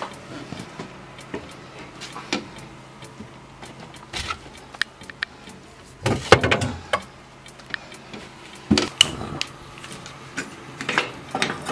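A refrigerator door is opened and a metal pot is lifted off a shelf, with scattered clicks, knocks and clatters of kitchen handling. The loudest clatter comes about six seconds in.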